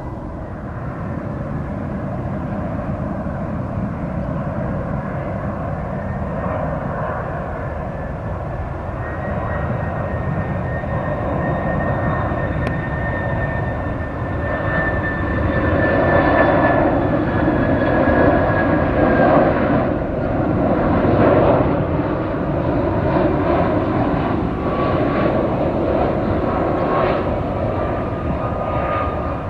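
Jet noise from a Boeing 767-300BCF freighter's two GE CF6-80C2 turbofans: a steady rumble with a high whine that slowly drops in pitch. The noise grows louder past the middle and then eases a little.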